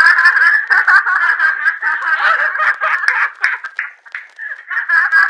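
Women laughing loudly with high-pitched, broken laughter that dips briefly about four seconds in before picking up again.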